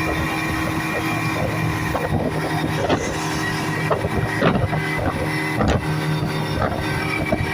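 Speedboat engine running steadily at speed over choppy water, with several sharp slaps as the hull hits waves.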